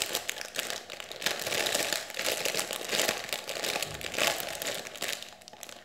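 Clear plastic packaging bag crinkling and crackling as a foam squishy toy is squeezed and turned inside it; the crackling dies down near the end.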